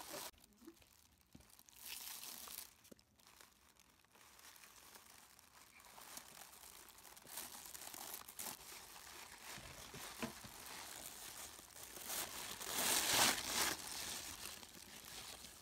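Tissue paper rustling and crinkling as small hands dig through it to unwrap a toy: scattered faint rustles at first, then steadier handling that is loudest near the end.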